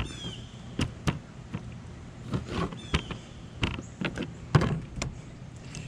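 Irregular knocks and scrapes from handling and cutting catfish fillets on a cleaning table, with a short falling squeak at the start and again about three seconds in, over a steady low hum.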